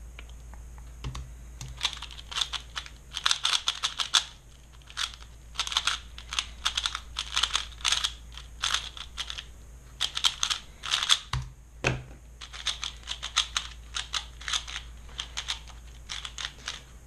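Rapid plastic clicking of a Valk 3 speedcube being turned fast during a solve. The moves come in quick bursts of clicks, with short pauses between them.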